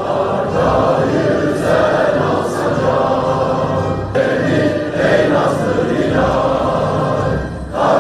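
A choir singing to music, loud and sustained.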